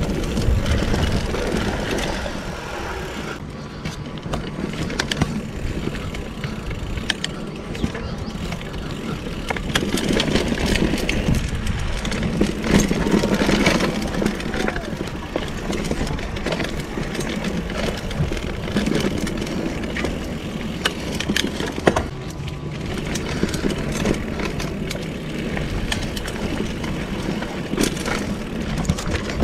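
2015 Giant Trance II full-suspension mountain bike ridden over a dirt singletrack: a steady rush of tyre noise with frequent sharp rattles and knocks from the bike over bumps.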